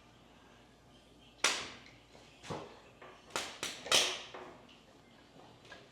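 Metal parts clanking and knocking, about five sharp hits over a couple of seconds, the loudest near the end, as an engine is worked loose on a jack and hoist.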